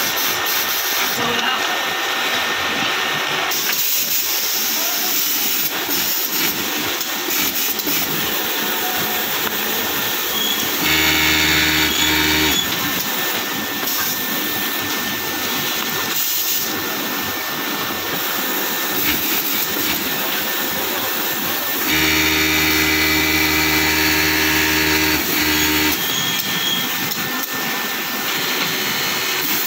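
Industrial sewing machine stitching a shirt hem in two runs at steady high speed, a short one about eleven seconds in and a longer one of about four seconds near twenty-two seconds, over a steady background hiss.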